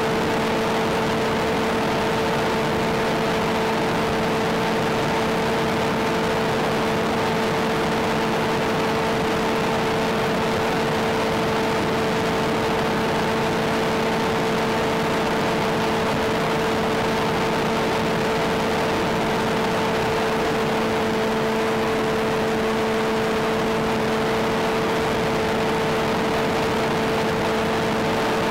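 Steady hiss with a constant buzzing drone, unchanging throughout: the in-flight audio of an FPV Sky Surfer glider cruising with its electric pusher motor at steady throttle.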